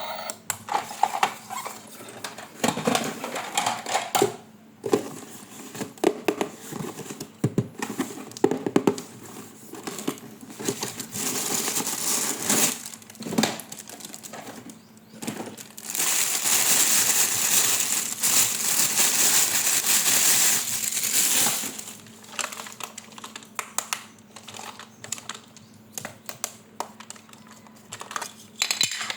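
Toy packaging and plastic parts being handled, with irregular clicks and crinkling, and about five seconds of loud continuous rustling a little past the middle.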